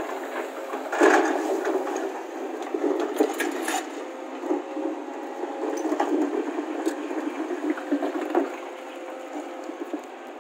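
Hydraulic crawler excavator running steadily while loading broken rock: clattering and knocks of stone tumbling from the bucket and scraping in the pile, the loudest crash about a second in, with more knocks scattered through.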